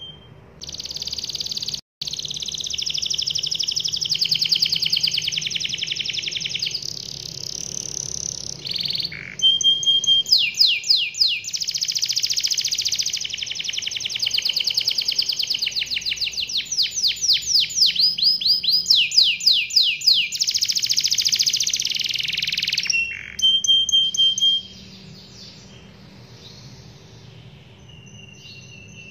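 Domestic canary singing a long rolling song of fast trills and runs of repeated sweeping notes, with a brief break about two seconds in. The song stops about five seconds before the end, leaving only faint chirps.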